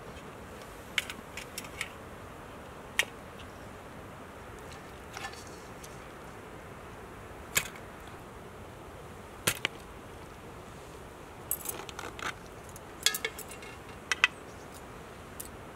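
Metal forks clinking and scraping against a cooking pot and a metal serving tray while whole roast chickens are lifted out and laid down: irregular sharp clinks, some in quick clusters, over a steady background hiss.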